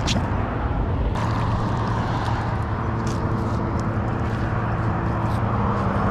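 A motor hums steadily, setting in about a second in, over a continuous rushing noise. There is a sharp click at the start and a few light clicks later.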